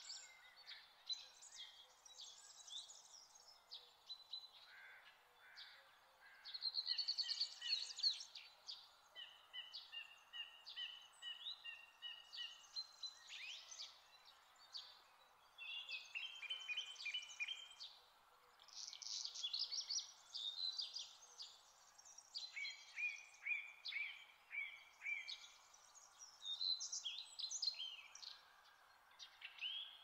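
Several songbirds singing in overlapping short phrases of chirps, trills and rapid repeated notes, over a faint steady background hiss.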